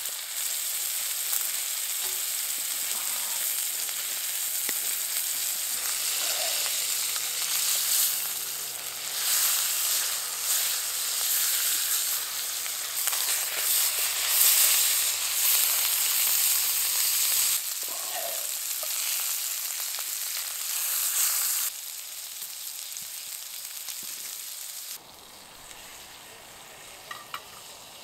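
Fillet steak searing in butter in a cast-iron skillet: a loud, steady sizzle that swells now and then and turns fainter for the last few seconds.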